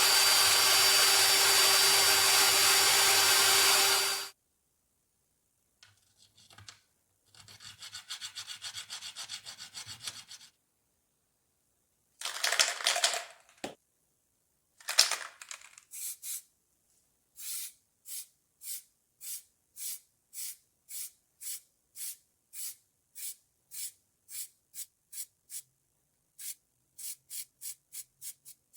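A power tool runs loudly and steadily, then stops abruptly about four seconds in. After some scattered scraping, a long series of short, even hand rubbing strokes follows, about one and a half a second, quickening near the end.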